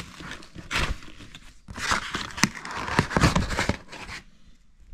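Taped cardboard box being ripped open by hand: noisy tearing and crinkling in bursts, the longest from about two to nearly four seconds in, then quieter.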